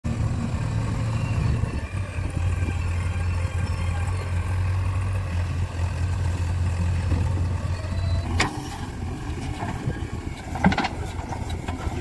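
JCB 3DX backhoe loader's diesel engine running steadily with a deep hum. About eight seconds in the engine note drops, and a few short sharp knocks follow.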